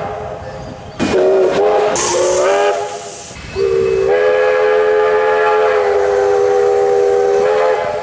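Victorian Railways K-class steam locomotive K 100's chime whistle: two short blasts, the second sliding up into pitch with a burst of steam hiss, then one long steady blast.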